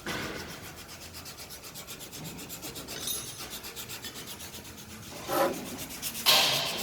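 Rapid, even rasping or rubbing, about six strokes a second, with two louder scrapes near the end.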